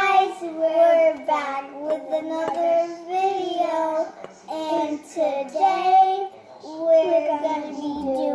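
A child singing a tune in a high voice, in short held phrases that break about every second.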